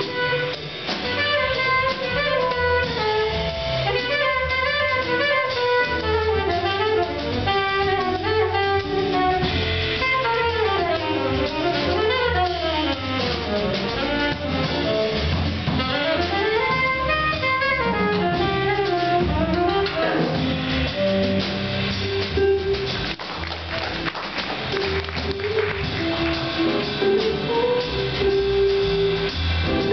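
Live small-group jazz: an alto saxophone solo in fast runs up and down, over piano, guitar, upright bass and drum kit. The solo line thins out about two-thirds of the way through while the rhythm section keeps going.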